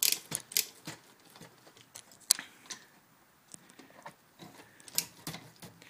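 Irregular sharp metal clicks and knocks of a hand tool working on a pit bike engine as the cylinder head nuts are loosened.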